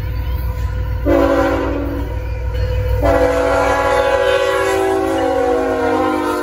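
Locomotive air horn, several tones sounding together as a chord: a short blast about a second in, then a long blast from about three seconds in that cuts off at the end, over the low rumble of the passing train.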